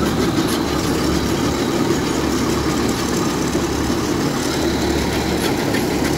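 Kubota DC-105X combine harvester's diesel engine running at a steady idle while it warms up after being started.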